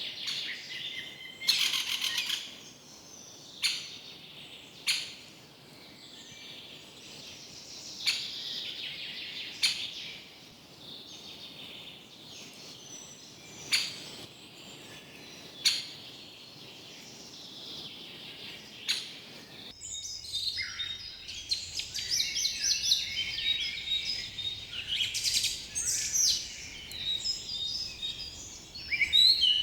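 Forest birds calling: short, sharp calls scattered every second or two over a steady background of distant birdsong. About two-thirds of the way in, the sound switches abruptly to a dense chorus of rapid chirping.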